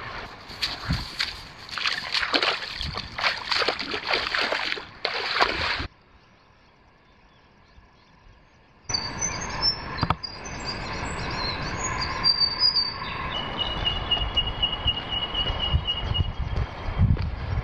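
Shallow river water rushing and splashing over rocks for about six seconds, then a quiet gap. After the gap, birds call with high chirps and a steady high trill that lasts a few seconds and comes back near the end, along with a few low thumps.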